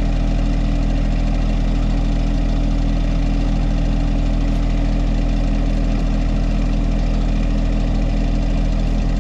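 John Deere compact tractor's engine idling steadily close by, an even unchanging drone.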